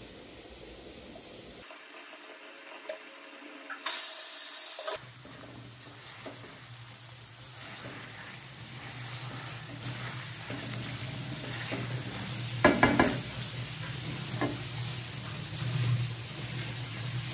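Pork and potato pieces sizzling in a metal kadai while a wooden spatula stirs them, with scrapes and knocks of the spatula against the pan. The loudest knocks come about thirteen seconds in.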